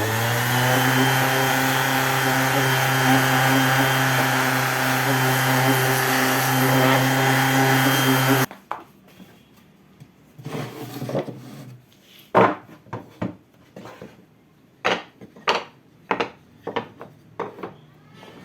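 An electric power tool running steadily on wood, loud with a fixed pitch, stopping abruptly about eight seconds in. After it comes a string of irregular sharp knocks and taps on wood.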